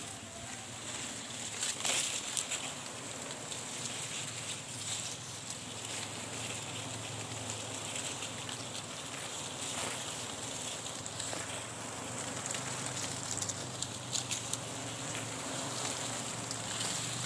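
Steady low buzzing hum of a colony of wild honey bees massed on the tree trunk and flying around the nest, with a thin high steady drone above it. A few light clicks and rustles come from the climber's handling.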